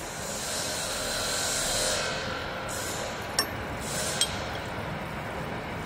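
Metal rubbing and scraping as a part of a chain link fence machine is dragged outward by hand, in stretches of hiss, with two sharp metallic clicks a little under a second apart near the middle.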